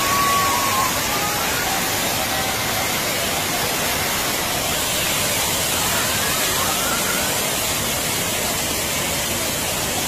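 Waterfall rushing: a steady, dense roar of falling water.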